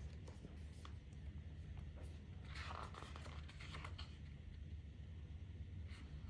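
A photobook page being turned: a brief papery swish about two and a half seconds in, with a few soft handling clicks over a low steady hum.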